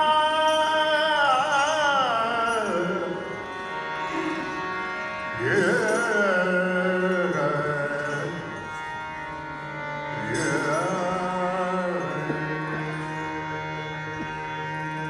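Male voices singing a bhajan in Hindustani classical style: long held notes with ornamented glides, in three phrases that each start with a rise and ease downward, over a steady low drone.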